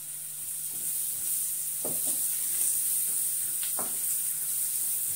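Sliced onions sizzling in hot butter in a frying pan, stirred with a wooden spatula that knocks against the pan twice, at about two seconds and near four seconds.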